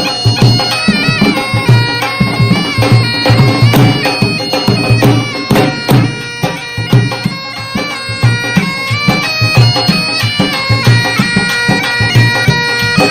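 Background music: a sustained, reedy wind-instrument melody over a steady drum beat.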